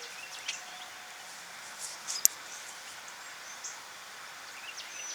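Outdoor background with scattered small clicks and brief high chirps, and one sharp click about two seconds in.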